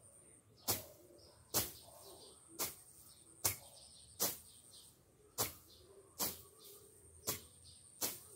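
Hand tool striking into weeds and ground as they are cleared by hand: nine sharp strokes at a steady pace of about one a second.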